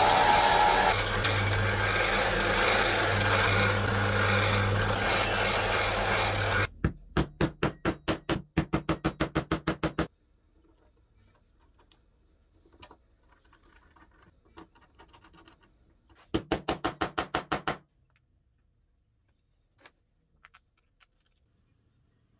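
Drill press running and boring into a plywood block, then stopping abruptly about seven seconds in. A rapid run of even clicks, about six a second, follows for a few seconds, and another shorter run comes later, with light handling taps in between.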